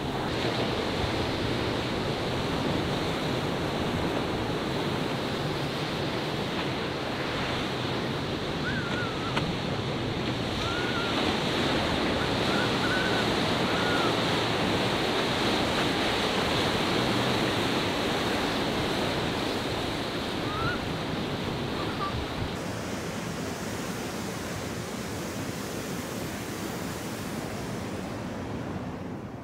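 Ocean waves breaking and washing ashore, a steady rush of white water with wind on the microphone. A few short, faint chirps come through in the middle, and the sound fades out near the end.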